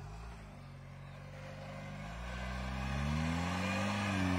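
Jeep Wrangler engine pulling through loose sand. The engine note wavers, then rises in pitch and grows louder over the last couple of seconds as the driver gives it more throttle.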